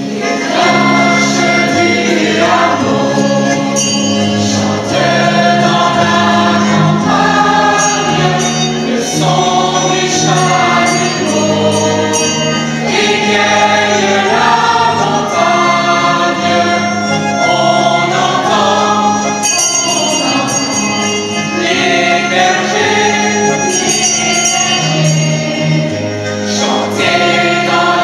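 Choir singing a Christmas song, many voices together in held, sustained notes.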